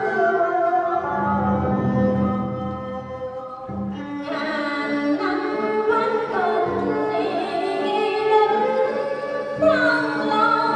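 Live traditional Vietnamese music with singing, accompanying a water puppet show.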